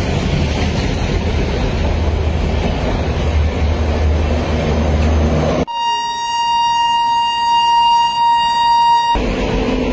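Passenger train passing close, a steady rolling rumble of coaches on the rails. About six seconds in, a steady single-pitched train horn sounds for about three and a half seconds, starting and stopping abruptly, with the rolling noise dropping out while it sounds.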